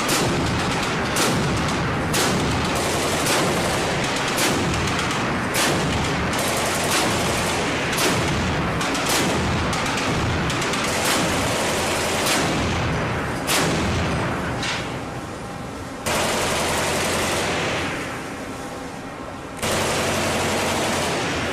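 Mk 38 mount's 25 mm M242 Bushmaster chain gun firing single shots at a steady pace of about one a second, each shot sharp with a rolling echo. Near the end the shots give way to two longer loud stretches that each start abruptly.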